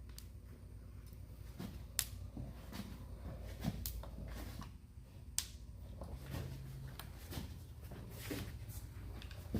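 Faint handling noises at a workbench, with a few sharp clicks, two of them standing out about two seconds and five seconds in, over a low steady hum.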